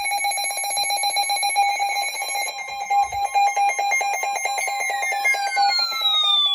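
Emergency Alert System attention signal: a loud, steady two-tone alarm with a fast flutter. About two-thirds of the way through, a second tone starts sliding down in pitch over it.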